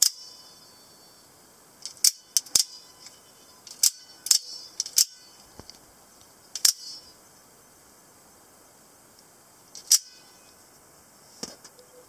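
Scarab D/E-style automatic spring knives firing their blades out and back: a series of sharp metallic snaps, about ten, irregularly spaced, with a pause of a few seconds after the middle.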